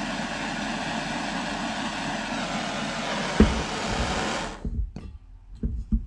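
Handheld gas torch hissing steadily as it shrinks heat-shrink tubing, shut off about four and a half seconds in. A sharp knock comes shortly before it goes out, and a few light knocks follow.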